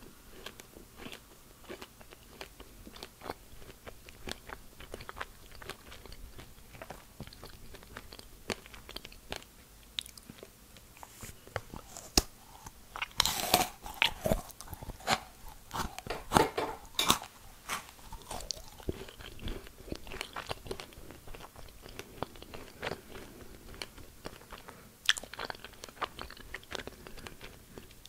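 Close-miked crunching and chewing of white-chocolate-coated dried strawberries: many small crisp crackles, with a louder stretch of crunching about halfway through.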